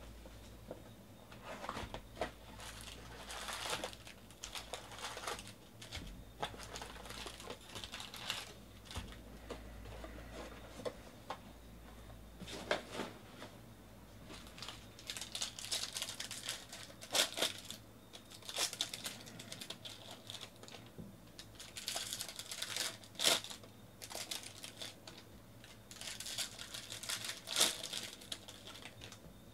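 Foil trading-card pack wrappers crinkling and rustling as packs are handled, then torn open, with irregular sharp crackles that grow denser and louder from about halfway through.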